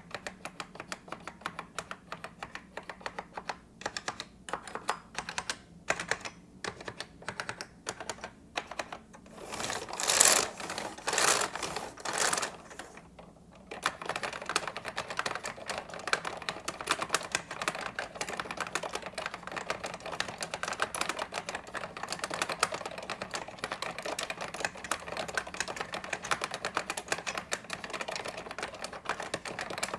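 Typing on a vintage Zbrojovka Consul 262.12 keyboard with Tesla Hall effect linear switches. Spaced-out keystrokes at first, three louder, longer noises of about half a second each around ten to twelve seconds in, then after a brief lull fast, continuous typing.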